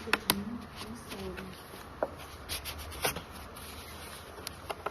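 Plastic spudger rubbing and prying along the seam of an ultrasound machine's plastic control panel, with scattered sharp clicks and snaps.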